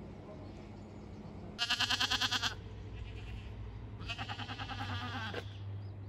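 A goat bleating twice, each a quavering call of about a second, the first one louder.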